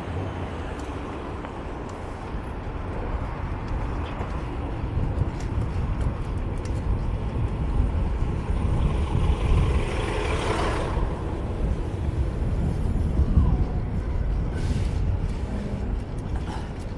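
Wind rushing over a bike-mounted action camera's microphone during a city bicycle ride, with steady street traffic around it. A louder hissing swell builds and cuts off about eleven seconds in.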